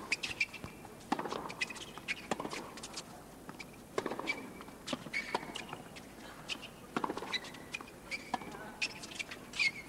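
Tennis rally on a hard court: sharp racket strikes and ball bounces follow each other every second or so, with tennis shoes squeaking on the court between them.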